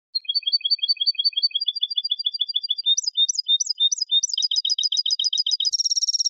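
European goldfinch (jilguero) singing a clean Málaga-style copia phrase: runs of quick, high repeated notes that change pattern every second or so, building to a dense trill near the end.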